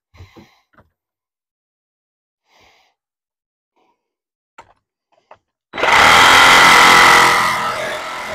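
A few light clicks and knocks of parts being handled, then about two-thirds of the way in a power tool starts suddenly and runs with a steady whine, loudest for its first second or so before settling to a steady lower level.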